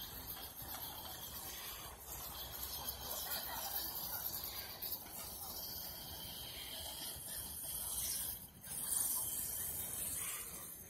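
Skateboard wheels rolling on wet concrete: a steady hiss, with a short dip about eight and a half seconds in.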